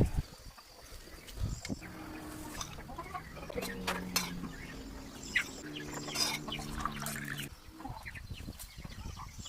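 A farm animal calling: two long, low, held calls, one about three and a half seconds in and a longer one about six seconds in, among scattered clicks and knocks.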